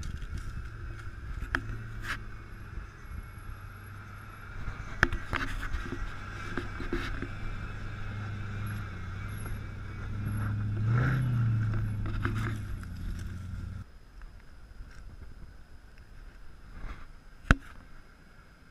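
Land Rover Discovery's engine running at low revs as it crawls up a rocky track, growing louder as it passes close by about ten seconds in, with occasional cracks and scrapes as the tyres climb over rock. The engine sound drops away suddenly about fourteen seconds in, and a single sharp crack follows near the end.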